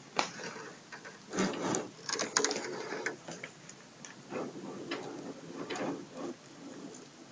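Irregular light clicks, taps and rustling of handling, with no steady rhythm.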